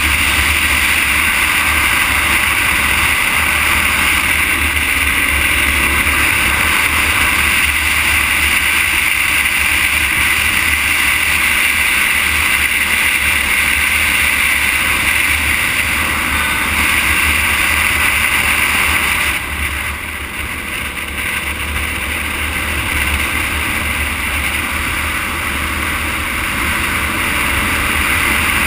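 Steady rush of wind and tyre noise from travelling along an asphalt highway, dipping a little about twenty seconds in.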